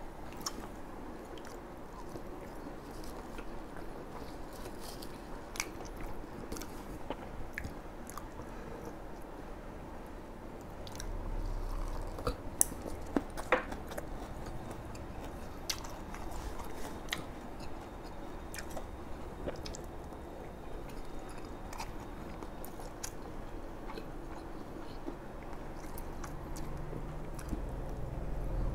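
Close-miked chewing and biting of bún đậu mắm tôm: fried tofu, rice vermicelli and fried pork sides, with scattered crisp crunches and wet mouth clicks. A few louder crunches come about halfway through.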